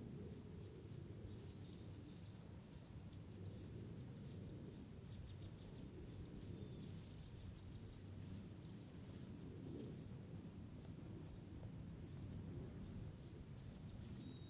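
Small birds chirping faintly: many short, high chips scattered throughout, over a low, steady background rumble.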